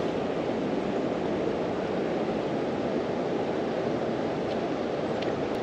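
Steady rushing of flowing river water, an even noise that holds without a break.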